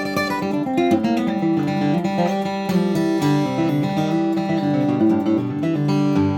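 Boucher SG-152-BMV acoustic guitar in medium-gauge strings, flatpicked: a quick run of single notes and bass lines mixed with strummed chords, a new chord struck right at the end.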